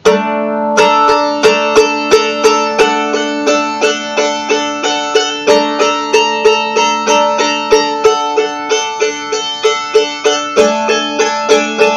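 Mandolin in open D tuning, strummed steadily at about three strokes a second, with the chord changing about a second in, around the middle and again near the end.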